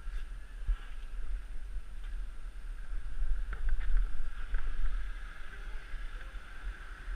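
A Renault Master van driving slowly past close by, its engine and tyre noise swelling to a peak about four seconds in and then easing off, over steady low rumble.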